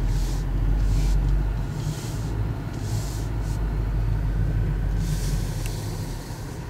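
BMW X3 35i's turbocharged inline-six and road noise heard from inside the cabin as the car turns and pulls away: a steady low rumble, with a few brief hissing sounds over it.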